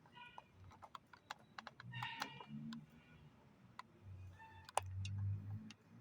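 Scattered light clicks and knocks, with faint voices in the background.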